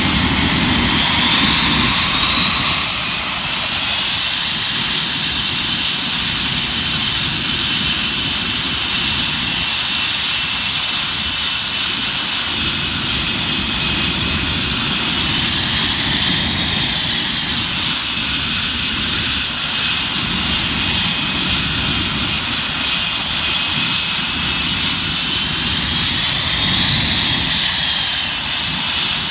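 Panavia Tornado GR4's twin RB199 turbofan engines running with a loud, steady, high whine over a rumble. The whine rises over the first few seconds and then holds, briefly rising and falling in pitch twice, about halfway through and near the end.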